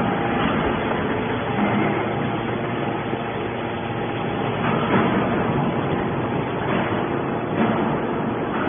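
Hydraulic scrap metal baler running: a steady machine drone with a faint hum, swelling briefly louder a couple of times.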